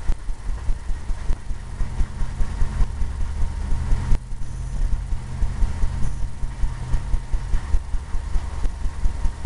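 Paintbrush strokes on a stretched canvas pulling down water in wet-on-wet oil paint: a rapid, regular series of soft thumps, with a low steady hum underneath from about a second in until near the end.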